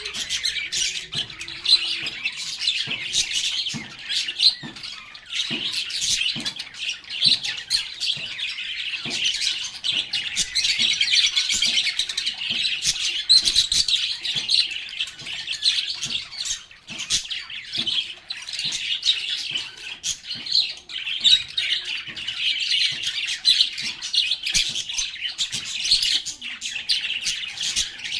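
A group of lovebirds chirping and chattering without a break, a dense overlapping mass of high, rapid chirps and squawks, with scattered sharp clicks among them.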